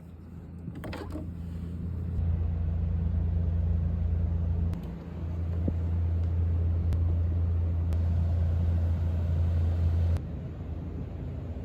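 A steady low rumble that builds over the first couple of seconds, dips briefly about five seconds in and eases off about ten seconds in, with a few faint clicks over it.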